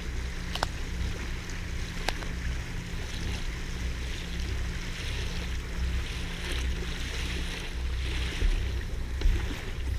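Water rushing and splashing past the hull of a Lagoon 400 S2 catamaran under way, over a steady low hum and some wind rumble on the microphone, with a couple of faint clicks.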